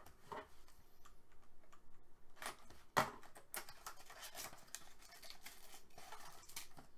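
A 2018-19 Upper Deck SP Game Used hockey card box being torn open by hand, with the wrapper and cardboard tearing and rustling in irregular clicks and scrapes. A sharp snap about three seconds in is the loudest sound.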